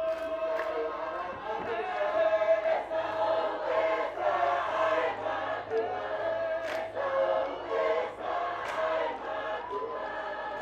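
A large mixed chorus of school performers singing a Tongan lakalaka, many voices together in a sustained choral chant.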